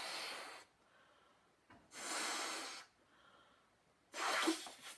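A person blowing up a rubber balloon: three long breaths blown hard into it, each about a second, with quieter breaths drawn in between.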